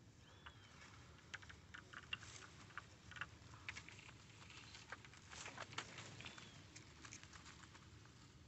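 Near silence broken by faint, irregular light clicks and ticks, with two short high chirps, one about half a second in and one around six seconds in.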